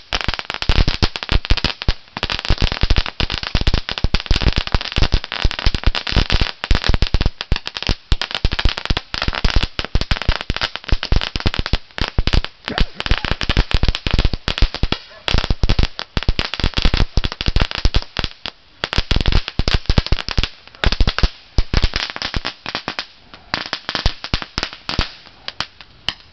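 Shogun 'Crackling Crawfish' firework going off: a dense, rapid run of crackling pops over a hiss as it throws out showers of sparks. The crackles thin out to scattered pops over the last few seconds as it burns out.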